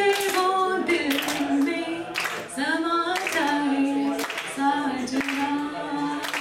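A woman singing unaccompanied into a microphone, holding long notes that bend and slide between pitches, with sharp hand claps keeping time behind her.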